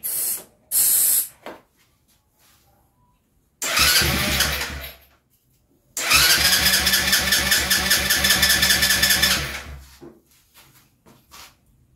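Small 50cc mini-bike engine being turned over on its electric starter: a short burst of rhythmic cranking, then a longer try of about three and a half seconds. Two short hisses are heard near the start.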